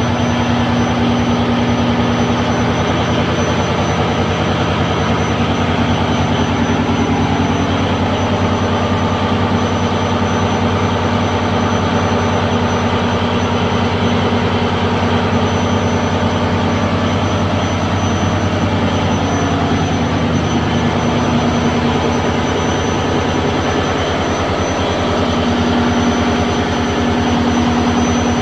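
Fishing boat's inboard engine running steadily at a constant speed, heard from inside the enclosed engine room.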